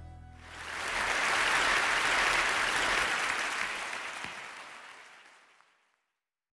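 Audience applauding: the clapping swells up about half a second in, as the end of the intro music fades, holds, then dies away over the last two seconds.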